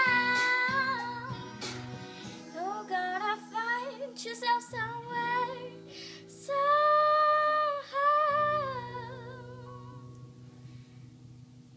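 Young female singer singing wordless closing runs over a low sustained accompaniment, holding two long notes about seven and eight seconds in, then the music fading out.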